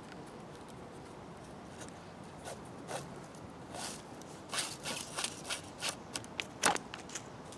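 Rope being pulled around and between wooden poles while tying the frapping turns of a tripod lashing: a series of short scraping, rustling swishes that begin a couple of seconds in and come thickest in the second half, the loudest one near the end.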